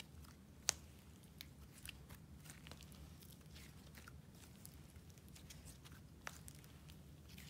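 Inflated clay slime stretched and squeezed by hand, giving faint scattered crackles and small pops, with a sharper click about a second in and another near the end.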